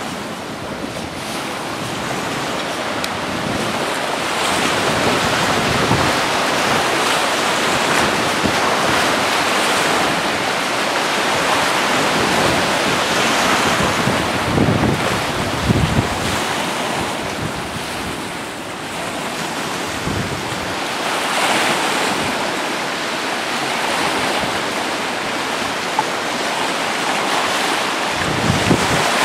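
Storm wind and rough, wind-driven waves washing against a sea wall, with wind buffeting the microphone. The noise swells and eases in surges.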